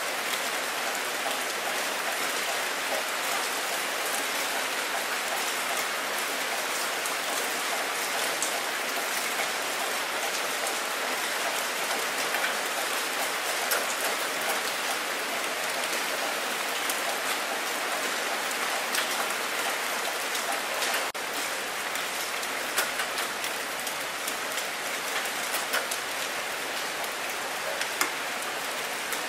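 Steady rain falling on a water surface: a dense, even patter with sharper single drop hits scattered through it.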